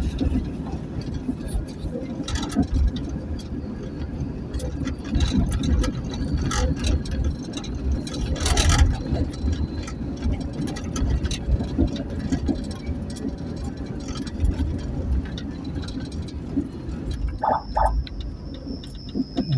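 Ambulance driving along the road, heard from inside the vehicle: a steady low rumble of engine and tyres with scattered knocks and rattles, and no siren.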